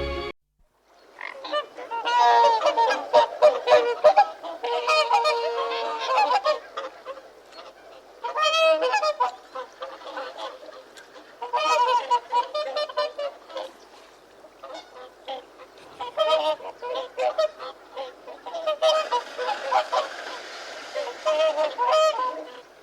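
Several large waterfowl honking, calling over one another in bouts of a few seconds with short pauses between.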